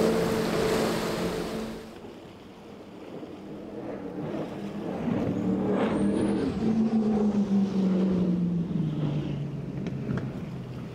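High-performance powerboat engines at speed with the hiss of spray: first the twin Mercury 450R outboards of an MTI, cut off sharply about two seconds in, then a Skater's engines swelling as it approaches and dropping in pitch as it runs past.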